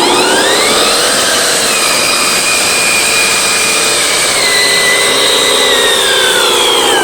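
Small electric motor and gearbox of a handmade RC model truck whining under power. The pitch rises in the first second, holds, then slowly falls near the end.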